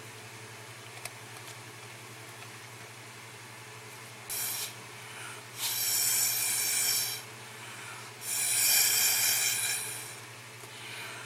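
Three blasts of hissing air, a short one and then two of one to two seconds each, pushing the wet alcohol ink across the Yupo paper.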